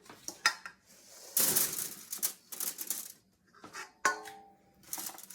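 Diced, oiled potato pieces tipped out of a bowl onto a foil-lined sheet pan: a scatter of light clattering ticks, with a longer rushing pour about a second and a half in.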